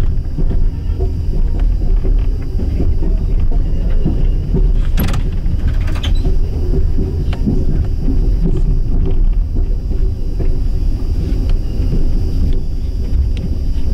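Steady low rumble of an Amtrak Superliner passenger car rolling slowly over the rails, heard from inside the car, with a couple of sharp knocks about five and six seconds in.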